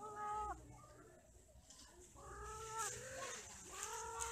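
Cat yowling in three long, drawn-out calls, the caterwauling of cats courting during mating.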